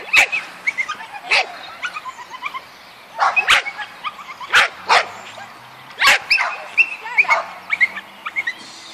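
Yorkshire terrier barking, about six sharp, short barks spaced irregularly a second or so apart.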